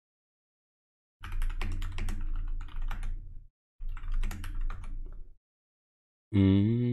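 Typing on a computer keyboard close to the microphone: two runs of rapid key clicks with dull knocks under them, separated by a short pause. Near the end a loud low pitched sound starts, falling in pitch and then holding.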